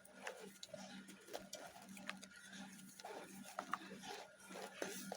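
Dry Multani mitti (Fuller's earth) chunks crumbling: soft, irregular crackles and small snaps. A faint steady hum lies underneath.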